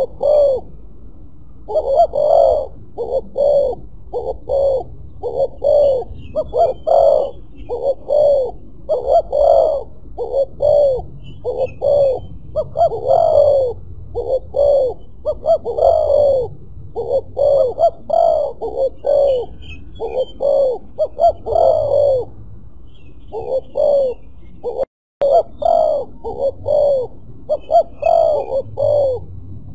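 Spotted dove cooing over and over in short repeated coo phrases, one phrase after another. The sound cuts out for a moment about 25 seconds in.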